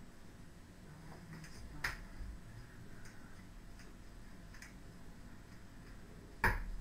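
Juggling rings being tossed and caught: a few sparse light clicks and clacks as the rings meet the hands and each other, with one louder clack near the end.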